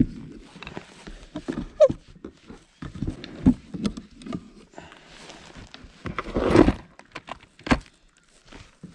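Irregular knocks, clicks and rattles of fishing gear being handled on a plastic kayak: rod, reel and lip-grip pliers. There is a short rising squeak near two seconds in and a louder burst of clatter about six and a half seconds in.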